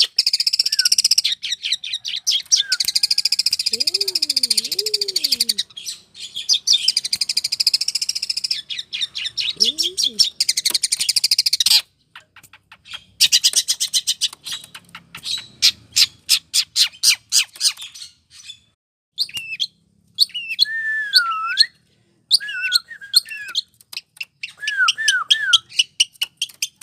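Long-tailed shrike (cendet) singing: long runs of very rapid, high chattering notes broken by short pauses, turning after about twenty seconds into shorter, lower whistled phrases that dip and rise.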